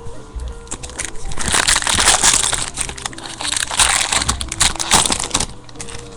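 Trading-card pack wrapper crinkling and crackling as it is torn open and crumpled, loudest from about a second and a half in until about five and a half seconds in.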